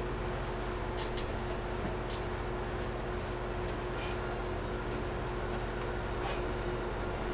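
Steady electrical hum and hiss with a few faint, scattered clicks.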